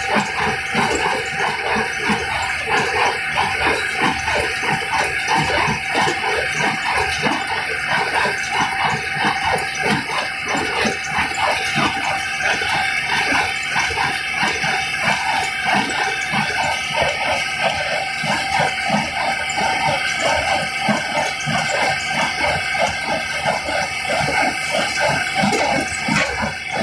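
Kubota small square baler running off a tractor's PTO, its plunger and feed mechanism knocking in a fast, steady rhythm over a steady mechanical whine, as it compresses straw into bales.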